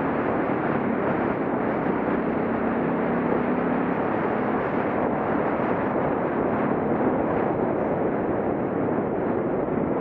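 Wind rushing over the camera microphone on a moving Suzuki DR650, with the bike's single-cylinder engine running steadily underneath, its hum a little clearer in the first half.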